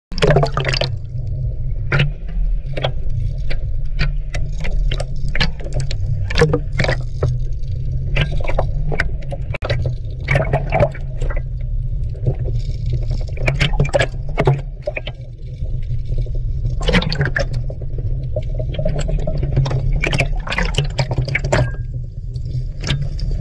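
Water sloshing and splashing around a camera held half under the surface: a steady low rumble with frequent sharp, irregular slaps.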